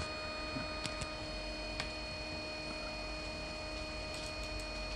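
Steady electrical hum with several constant high whining tones from the powered-up stepper-driver and radio electronics, with a few faint ticks about a second in and again just before two seconds.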